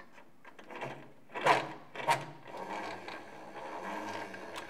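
Two sharp plastic clacks, then a steady whir as the wind-up radio's gear and pulley drive spins.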